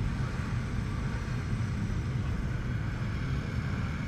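Motorcycles idling in a packed group, among them the Honda Gold Wing 1800 carrying the microphone: a steady low rumble.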